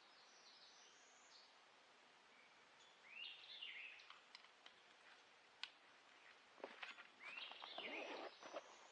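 Faint birdsong: high chirping at the start, then two sweeping calls about three and seven seconds in. Rustling and clicks come in near the end.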